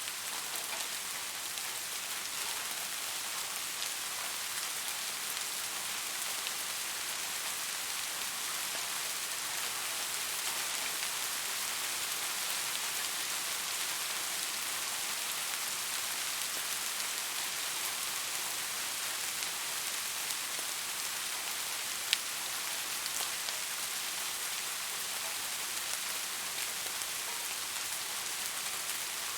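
Steady rain falling, a dense even patter of drops, with one sharper drop click about three-quarters of the way through.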